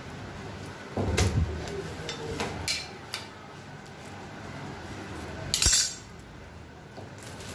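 Steel butcher's knife knocking and scraping on a granite countertop: a dull thump about a second in, a few short scrapes, then a sharp clatter near the end as the knife is set down on the stone.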